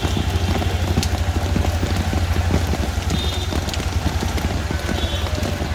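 Heavy rain pattering and splashing on hard surfaces in dense, irregular drops, over a steady low hum.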